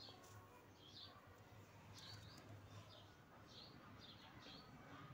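Near silence, with a small bird chirping faintly over and over, short high chirps every half second or so.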